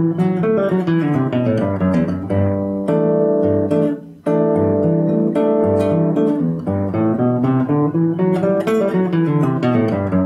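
Nylon-string classical guitar (violão) played fingerstyle: baixaria bass-line runs on single plucked notes, climbing and falling stepwise through the scale over low bass notes. There is a brief break about four seconds in.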